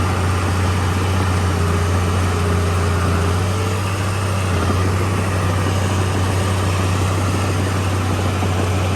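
Komatsu D31P crawler bulldozer's diesel engine running steadily with a deep, even drone.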